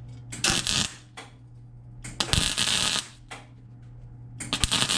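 MIG welder arcing in three short bursts of crackling and sputtering as beads are laid along a crack in a Jeep exhaust manifold. The welder is running low on shielding gas, which the welder's owner suspects, leaving a porous, spattery weld.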